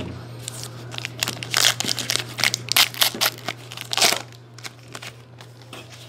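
Trading card pack wrapper torn open and crinkled by hand: a quick run of short crackling rips for about three and a half seconds, easing off to a few light rustles near the end.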